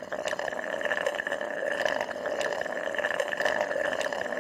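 Bath faucet running full, water pouring steadily into the tub.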